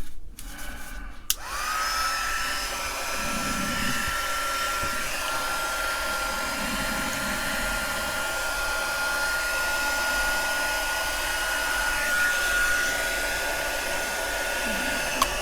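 Hot-air gun switched on about a second in, shrinking heat-shrink tubing over spliced wires: its fan spins up with a quick rising whine that settles into a steady high whine over a rush of air.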